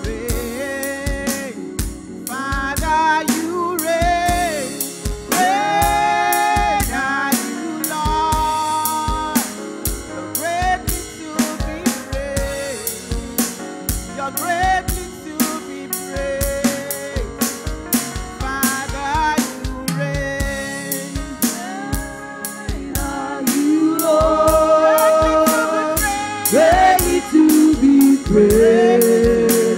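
Gospel song performed live by women singers, a lead voice in front with a group of backing voices, over a steady drum-kit beat.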